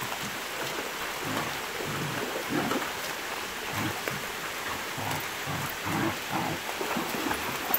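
Shallow creek water running over rock, a steady rushing hiss, with small irregular splashes from dogs wading through it.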